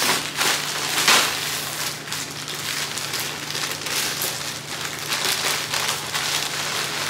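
Thin plastic garment bag crinkling and rustling as it is handled and opened, with a louder crackle about a second in.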